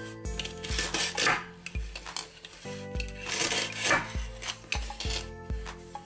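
Velcro strips on a plastic toy cake tearing apart as a plastic toy knife cuts through it, several short rips.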